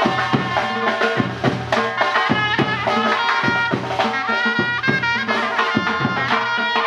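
Surnay, the Uzbek double-reed shawm, playing a loud melody of quickly changing notes over steady drum beats.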